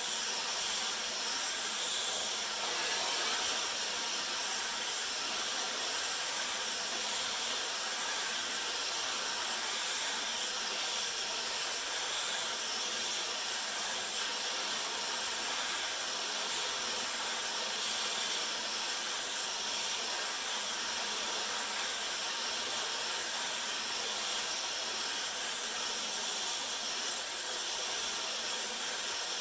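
Gas torch flame hissing steadily. It is heating the metal around a broken, seized bolt so that the metal expands and frees the bolt.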